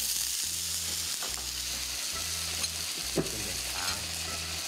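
Scallion, ginger and chili sauce with rice wine sizzling in a wok as it is stirred, with a few sharp clicks of a utensil against the wok.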